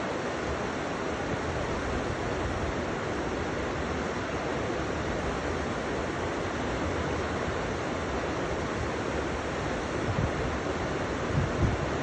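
River water rushing steadily, an even hiss of flowing water, with a couple of brief low thuds near the end.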